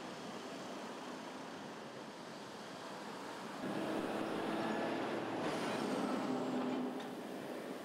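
Road traffic going past: a steady outdoor rush, then a car and a heavy truck drive by close, their engines loud for about three seconds past the middle before fading back.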